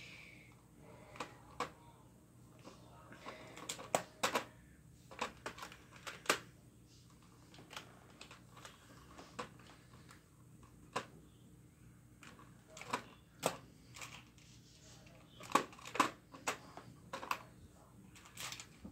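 Plastic magnetic building tiles clicking and clacking against one another as they are picked from a stack, stood upright and snapped together. The sharp clicks come irregularly, some in quick pairs, with the loudest clusters about four seconds in and again around fifteen to sixteen seconds.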